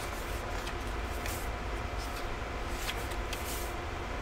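A few faint paper rustles and light taps as the pages of a printed book are turned and handled, over a steady low room hum.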